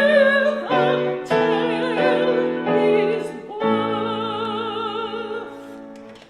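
A song with a singer and keyboard accompaniment comes to its end. The voice sings with vibrato over sustained chords, and the last chord is held for about two seconds before it fades out.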